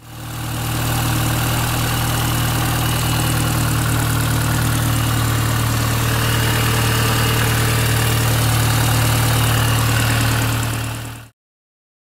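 A 2004 Mini Cooper S (R53) supercharged 1.6-litre four-cylinder idling steadily, with a loud noise from under the intercooler that the owner guesses comes from a line that came off the fuel pressure regulator. It swells in over the first second and cuts off suddenly near the end.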